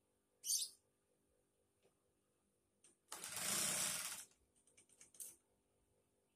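Industrial sewing machine driven by a clutch motor under the table: a stitching run a little over a second long near the middle, followed by a few short stitch bursts. A faint steady motor hum underneath, and a brief high rustle about half a second in.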